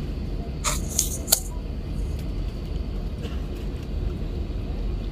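Steady low rumble inside an airliner cabin as the plane taxis after landing, with three short sharp rustling clicks about a second in.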